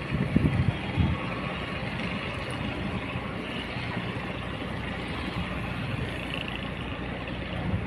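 Cargo barge's diesel engine running steadily, a low drone. A few gusts of wind buffet the microphone in the first second.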